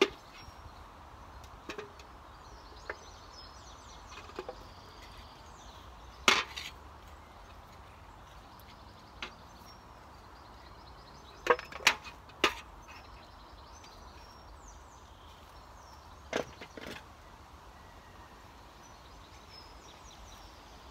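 Garden spade being driven into soil and worked, giving sharp scraping chops at irregular intervals. The loudest comes about six seconds in, and three come in quick succession around twelve seconds.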